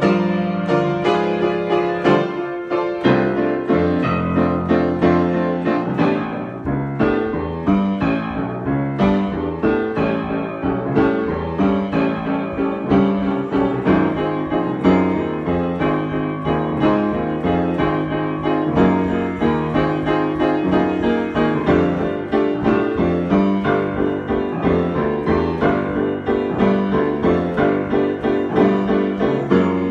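Piano improvisation: chords over low bass notes, moving into quick, evenly repeated notes from about halfway.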